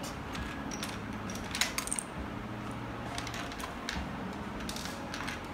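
Small plastic Lego pieces clicking as they are picked from the case and set down on a desk: a few light clicks about one and a half to two seconds in, and a few more near the end.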